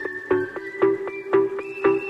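Background music with a steady beat, about two beats a second, under held high notes.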